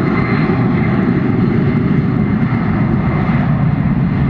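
Jet airliner engines at takeoff thrust: a steady, loud noise, heaviest in the low end, as the plane rolls and departs.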